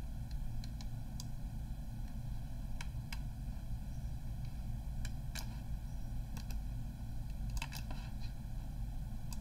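Sparse, irregular clicks from computer mouse and keyboard use, some single and some in quick pairs, over a steady low background hum.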